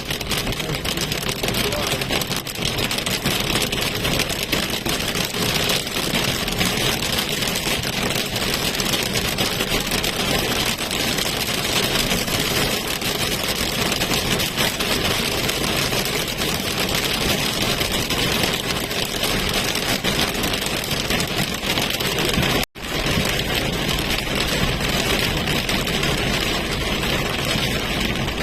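Steady noise inside a moving car in heavy rain: rain beating on the roof and windscreen over the engine and tyres on the wet road. The sound cuts out for a split second about 23 seconds in.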